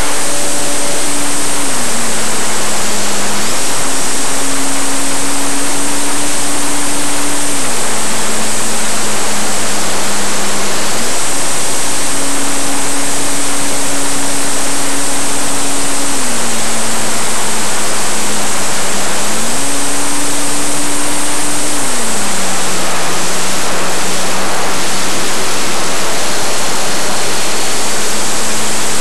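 Rush of wind over the onboard camera of an electric Parkzone RC warbird in flight, with the motor and propeller hum stepping between a higher and a lower pitch several times as the throttle is moved, and a faint high whine above it.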